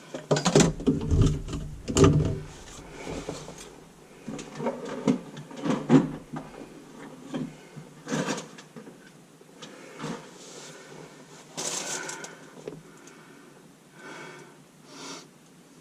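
Irregular knocking, clattering and rattling of drain pipe parts and tools being handled, with the heaviest thumps in the first couple of seconds.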